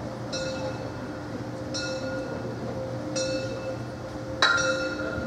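A railway bell ringing in single strikes about every one and a half seconds, with the strike near the end sharper and louder, over a steady low hum.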